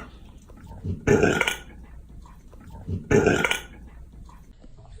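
Rough collie burping loudly twice, about a second in and again about three seconds in, each a wet belch of about half a second.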